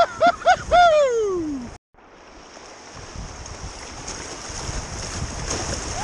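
A person whooping in excitement, four short rising whoops and then one long falling one, over the rush of whitewater. The sound cuts off abruptly just before two seconds in, then the rushing of fast river water over a riffle returns and builds.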